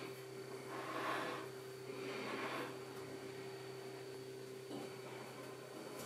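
Quiet room tone: a steady low hum with a faint high whine, and two soft breaths about one and two and a half seconds in.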